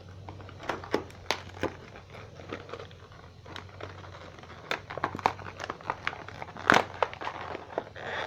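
Toy packaging being opened and handled: irregular crinkling, rustling and sharp clicks, with one louder snap toward the end.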